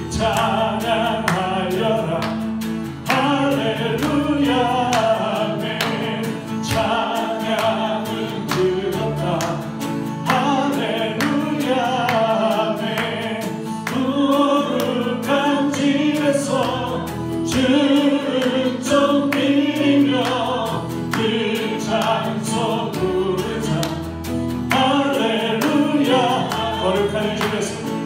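Church choir singing a worship song with instrumental accompaniment, the voices moving phrase by phrase over held bass notes.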